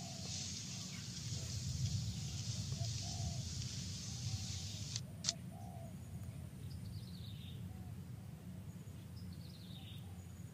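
Forest ambience: a steady high hiss that cuts off abruptly about halfway through, followed by a sharp click, then two short falling bird chirps a few seconds apart, all over a low steady rumble.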